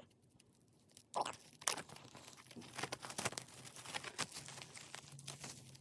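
Plastic shrink wrap being torn open and crinkled off a boxed album, a dense run of crackling and tearing that starts about a second in.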